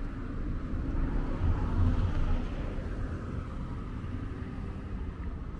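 Road traffic: a low rumble with a car passing, swelling about two seconds in and then fading.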